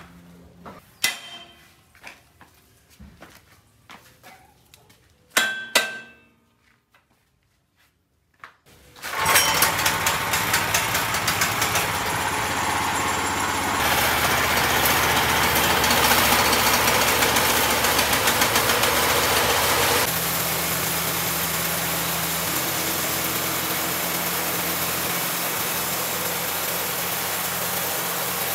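A few scattered knocks and clanks, then about nine seconds in the 16 HP petrol engine of a horizontal band sawmill comes in loud and runs steadily, its sound shifting twice.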